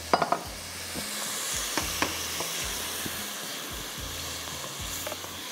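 Mutton and spice masala sizzling in a steel pan just after a splash of water, which keeps the masala from sticking and burning. It is stirred with a wooden spoon, with a few sharp clicks of the spoon against the pan.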